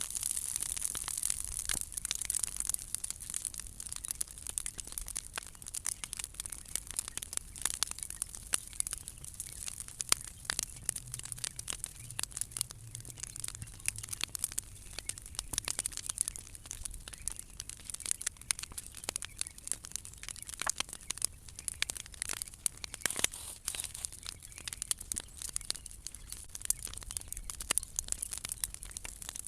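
Bonfire of old decking timber and cut branches burning, crackling with dense, irregular sharp pops over a steady hiss.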